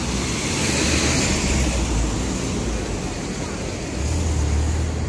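City street traffic: vehicles passing on the road. A low engine rumble swells about a second in and again near the end.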